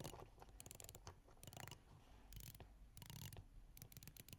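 Seiko SBDC053 dive watch bezel being turned, a rapid run of very soft, faint clicks in short clusters.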